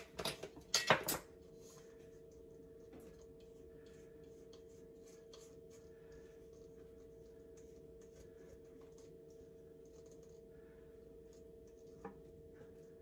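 Rubber spatula scraping brownie batter out of a stainless steel mixing bowl, faint scattered scrapes and ticks over a steady low hum. A few short sharp noises sound in the first second.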